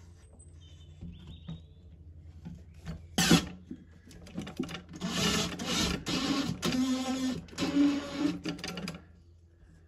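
A Makita 18V cordless driver running inside a small steel wall safe, driving a mounting screw through the safe's side. A sharp knock a little over three seconds in. The motor then runs for about five seconds with a few short let-offs and stops about nine seconds in.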